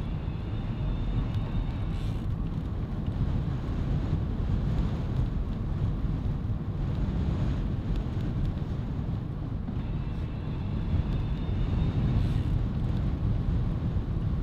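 Wind buffeting the microphone of a bicycle-mounted camera on the move: a steady low rumble.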